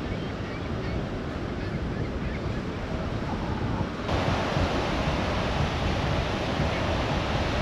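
Strong wind on the microphone over the wash of surf breaking on a beach. About four seconds in, the sound changes abruptly to louder, hissier surf.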